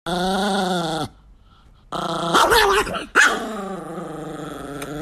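Chihuahua growling in drawn-out, pitched growls: one lasting about a second, a short pause, then a louder, rougher stretch broken by a sharp bark about three seconds in, followed by a long growl.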